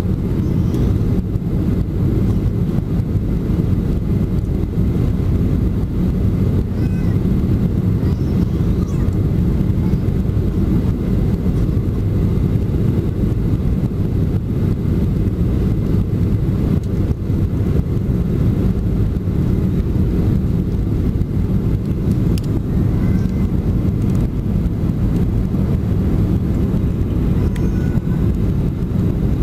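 Steady low drone of a Boeing 737-400's CFM56-3 turbofan engines and rushing airflow, heard inside the passenger cabin on descent.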